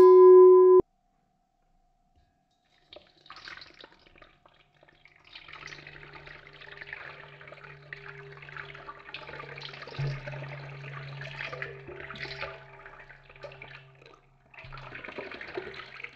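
A short, loud electronic tone at the very start, then after a pause water running from a kitchen tap into a sink with a steady low hum, stopping briefly near the end before running again.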